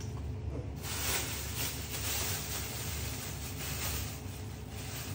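Thin plastic bag crinkling and rustling in uneven bursts as food is handled in it, over a steady low hum.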